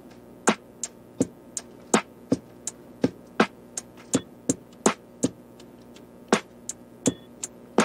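Background music with a steady drum-machine beat of sharp, evenly spaced hits, about three a second.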